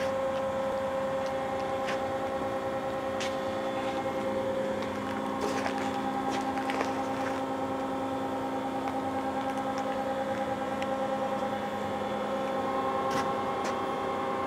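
Steady electrical and mechanical hum of a powered-up Haas SL30 Big Bore CNC lathe standing idle with its spindle stopped: several steady tones under a light hiss, with a few faint clicks.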